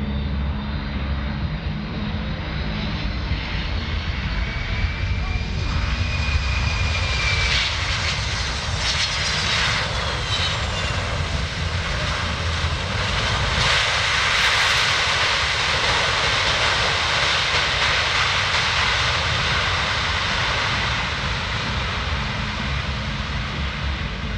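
Boeing C-17 Globemaster III's four Pratt & Whitney F117 turbofan engines running as it lands and rolls out on the runway. A whine shifts in pitch early on, and the engine noise grows louder a little past halfway through.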